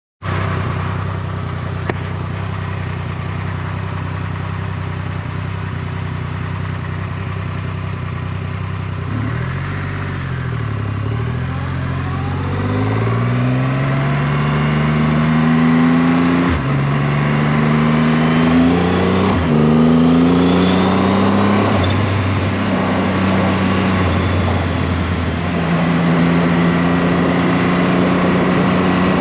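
Triumph Rocket 3R's 2.5-litre inline-triple engine idles steadily for about nine seconds. It then pulls away, rising in pitch through the gears, with two quick upshifts heard as short breaks and drops in pitch. In the last part it cruises at a steadier pitch, with wind rush building.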